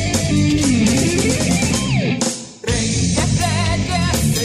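Christian heavy metal band playing, led by electric guitars, with a note sliding down in pitch. About two seconds in the music drops out for half a second, then the band comes back in.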